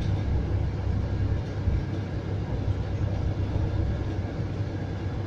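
Steady low rumble inside a moving Scania coach: engine and road noise in the cabin while driving.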